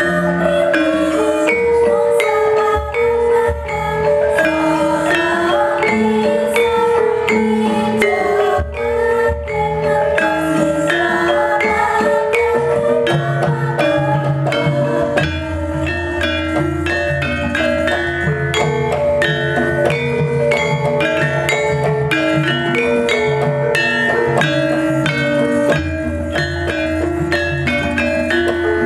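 Javanese gamelan ensemble playing: bronze metallophone keys are struck in a steady stream of ringing notes over drum strokes. A low, sustained hum enters about halfway through.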